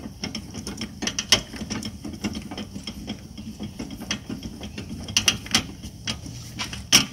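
Hand-cranked trailer tongue jack with a swivel wheel, its gears and crank clicking in a steady, uneven run of ratchet-like clicks as it is wound, with a louder knock about a second in and another near the end.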